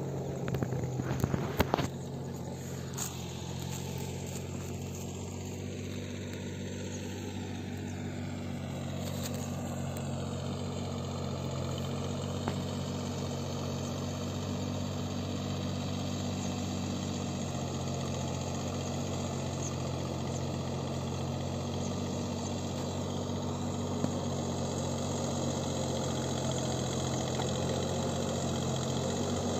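Deutz-Fahr Agrolux 50 tractor engine running steadily under work, a low, even hum that grows a little louder toward the end. A few sharp clicks in the first couple of seconds.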